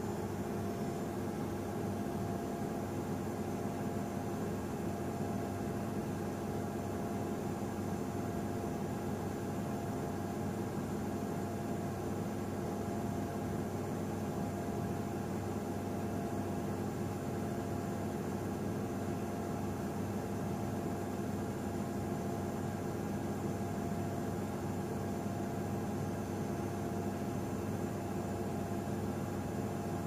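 Samsung Crystal Blue WW10H9600EW front-loading washing machine running at a steady speed, most likely in its spin: an even motor hum with several steady tones and a light hiss, no change in pitch or level.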